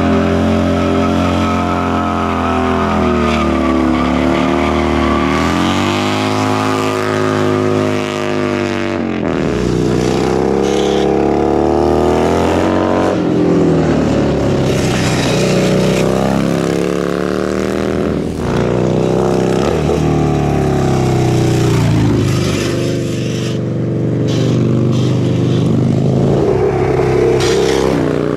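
Cruiser motorcycle engines revving hard: first held high and wavering through a burnout with the rear tyre spinning on the asphalt, then about nine seconds in, engines rising and falling repeatedly as bikes are ridden hard through corners.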